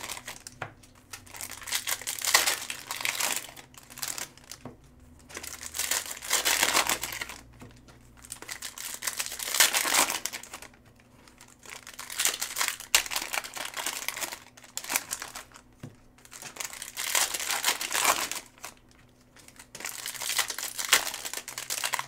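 Foil trading-card pack wrappers crinkling as packs of Cosmic Chrome baseball cards are ripped open one after another. The rustling comes in about six bursts of a couple of seconds each, with short quieter gaps between them.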